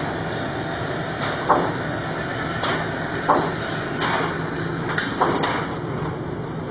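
Gunshots at an indoor shooting range: about seven single sharp reports at irregular intervals, half a second to a second apart, over a steady background hum.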